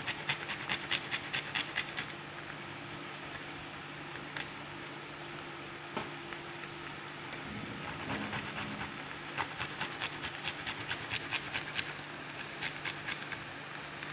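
Garlic cloves rubbed back and forth on a stainless-steel box grater: rapid scraping strokes, about five a second. The scraping pauses after about two seconds and starts again about nine seconds in.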